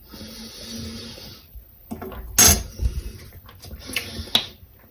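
A small metal spoon scraping in a jar and clinking against it, with one sharp clink about halfway through and a shorter scrape with light clicks near the end.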